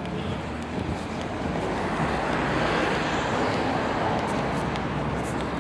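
Road traffic: a motor vehicle going by on the street, its engine and tyre noise building over the first two seconds and staying loud.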